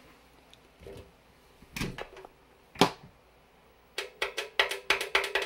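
Hand handling the power cord and metal case of a bench power supply: a few scattered knocks, then from about four seconds in a fast, irregular run of sharp clicks and rattles, with a faint steady hum coming in alongside.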